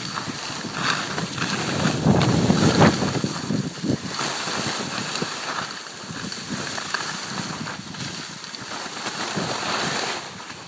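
Wind rushing over a phone microphone while skiing downhill, with skis scraping and hissing over the snow; loudest about two to three seconds in.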